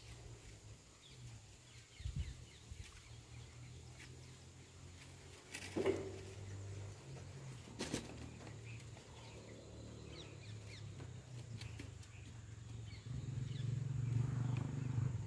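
Two sharp knocks about two seconds apart near the middle as the PVC water pipe is handled against the brick wall, over a steady low hum that grows louder near the end, with faint bird chirps.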